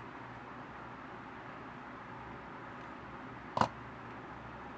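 Steady quiet room hiss with one short sharp tap about three and a half seconds in: a plastic LEGO model being set down.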